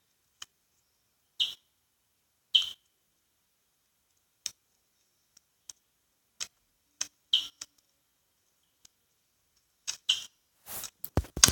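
Scattered short, sharp clicks and taps, about a dozen spread over ten seconds with silence between them. Near the end they give way to a denser rustle of noise.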